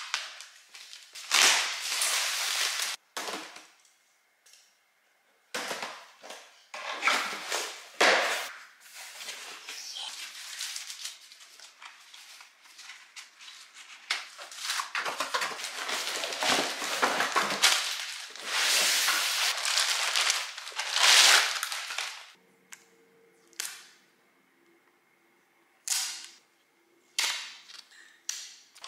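Plastic wrapping and plastic bags crinkling and rustling, with cardboard packaging handled, as a new Dyson V7 stick vacuum is unpacked from its box. The crackling comes in loud, irregular bursts, with a quieter pause about three quarters of the way through.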